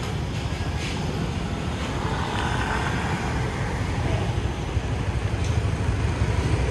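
Steady rumble of a motor scooter riding through city street traffic, its engine and road noise mixed with other passing vehicles, with faint higher tones from traffic a couple of seconds in.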